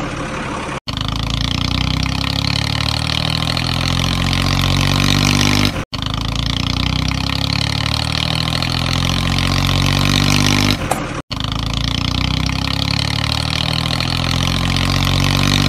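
Dubbed-on engine sound effect: a motor vehicle engine running, looped so that it cuts out briefly and restarts about every five and a half seconds.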